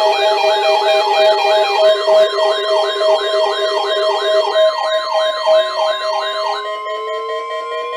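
Several electronic alarm tones sounding together, typical of weather radio receivers set off by a NOAA routine weekly test. A fast siren-like wail sweeps up and down about two to three times a second over a higher warble and steady beeping tones. The wailing stops about two-thirds of the way in, leaving a steady tone while a slow rising wail begins.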